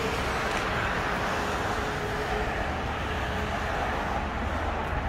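Steady outdoor road-traffic noise, an even rumble and hiss with no distinct events, with a faint steady tone underneath for the first half.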